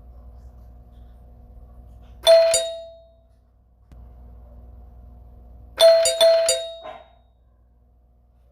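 Doorbell chime ringing twice. First a quick two-note ding-dong about two seconds in, then a second ring of three or four quick strikes a few seconds later, each note ringing out briefly.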